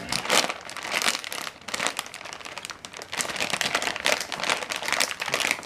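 Plastic potato-chip bag crinkling in rapid irregular crackles as it is handled and pulled at, being worked open with some struggle.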